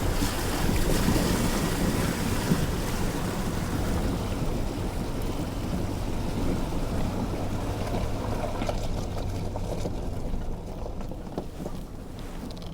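Suzuki Jimny driving through a river crossing: water rushing and splashing around the vehicle over a steady engine hum, the splashing dying away over the last few seconds.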